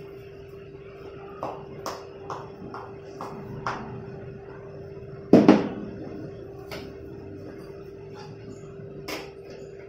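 Toy hammer tapping a sandal: a quick run of about six light taps, then one louder knock about five seconds in and a few scattered taps after it.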